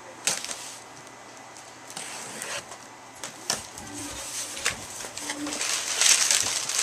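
Packaging being handled and unwrapped: scattered taps and clicks, then crinkling and rustling that grows louder near the end as the wrapping is pulled off.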